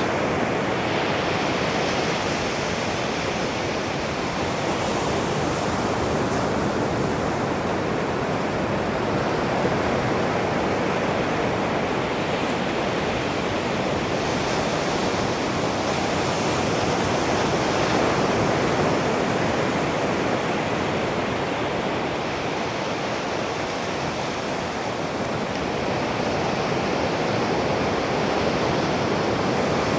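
Ocean surf breaking on a sandy beach: a steady wash of noise that swells and eases gently as the waves break and run up the shore.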